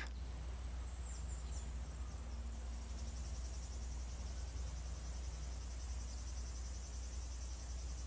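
Faint insects trilling, a high-pitched, rapidly pulsing chirr that becomes clearer about three seconds in, over a steady low hum.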